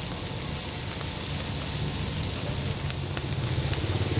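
Bean sprouts, prawns and chilli paste sizzling in a hot wok over a charcoal fire, over a steady low rumble, with a few faint ticks.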